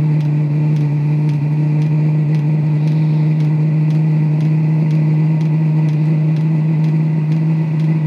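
Diesel air heater running at full power, just lit: a steady hum from its combustion blower fan, with the fuel dosing pump clicking about four times a second.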